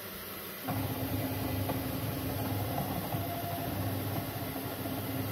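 Enclosed Bambu Lab 3D printer printing at high speed, its stepper motors and fast-moving toolhead starting a steady mechanical hum with a held tone about a second in. The fast moves make the printer shake the table it stands on.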